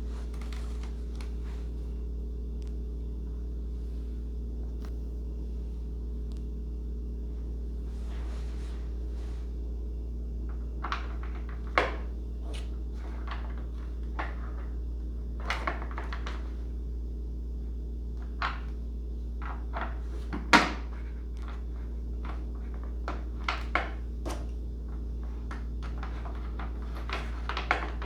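Scattered light clicks and knocks of model airplane parts and small tools being handled during assembly, one knock louder than the rest about two-thirds of the way in, over a steady low hum.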